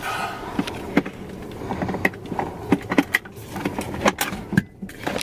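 Handling noises from the Doona infant car seat's LATCH base: irregular clicks and knocks with rustling as its connectors and straps are worked into place.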